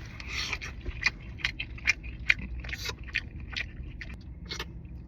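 A person eating from a bowl: irregular short clicks and scrapes, likely a fork against the bowl, mixed with chewing, over a low steady hum.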